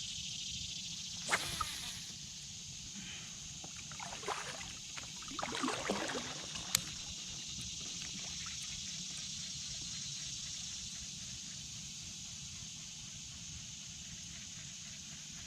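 Steady rush of river water around a kayak, with a few short knocks and rustles in the first half and one sharp click about seven seconds in.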